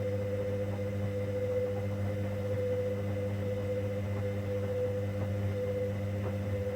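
Hoover Dynamic Next washing machine running in the main wash of a 90 °C cotton cycle, a steady electrical hum with a clear higher tone over it. A few faint ticks come near the end.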